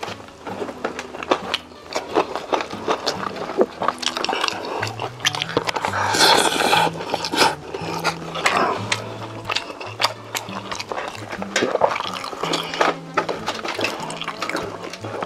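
Close-miked crunchy chewing and biting of food, many sharp crackles, over background music with a stepping bass line.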